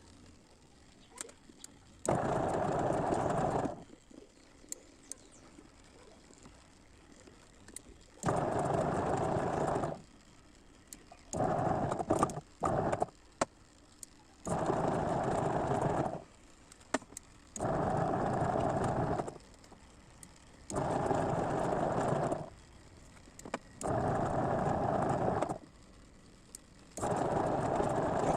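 Washing machine wash motor running in repeated bursts of about one and a half seconds with short pauses between, the on-off pattern of the wash cycle turning the pulsator one way and then the other. Sharp clicks come in some of the pauses.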